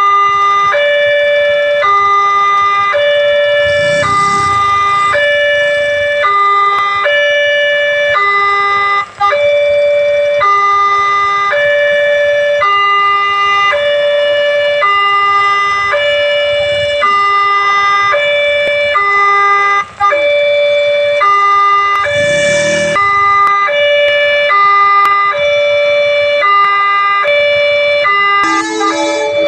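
Electronic warning siren of a railway level crossing: a high and a low tone take turns, each held for under a second, repeating steadily.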